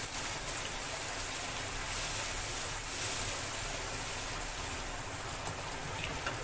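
Spice masala paste sizzling in hot oil in a nonstick wok while a spatula stirs it through: a steady frying hiss as the masala is fried down (bhuna).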